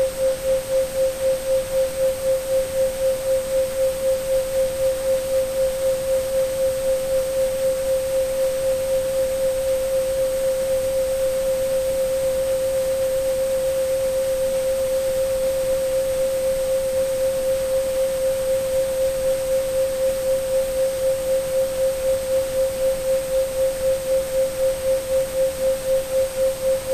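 Pure 528 Hz sine tone, steady in pitch, swelling and fading in loudness a few times a second, over a faint hiss of pink and white noise, with a faint high-pitched tone above it.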